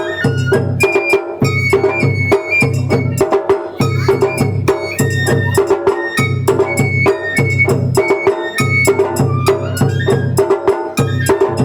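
Japanese festival hayashi music: a high bamboo-flute melody moving in short stepped notes over a steady beat of taiko drums and sharp percussion strikes, accompanying the bakamen dance.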